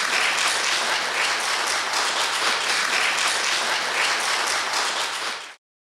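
Audience applauding steadily, many hands clapping; the applause cuts off suddenly about five and a half seconds in.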